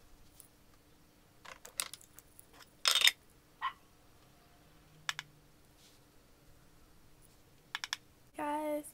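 A few short, sharp clicks and taps of makeup tools and containers being handled, the loudest about three seconds in, over a faint steady hum.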